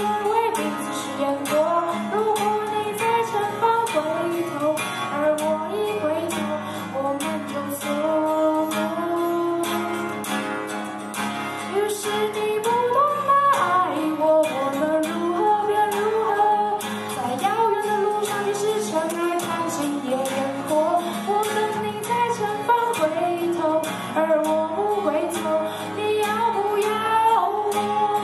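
A woman sings live into a microphone over an acoustic guitar that strums and picks beneath the melody.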